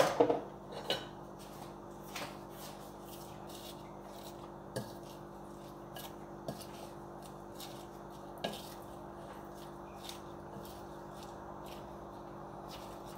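A wooden spoon tossing salad in a glass bowl, with light knocks of spoon on glass every second or two over a steady low hum. It opens with a short clatter of kitchenware.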